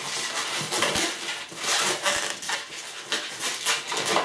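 Inflated green latex modelling balloon squeaking and rubbing under the fingers as its two ends are twisted and tied together, an irregular stretch of squeaks with a few sharper clicks.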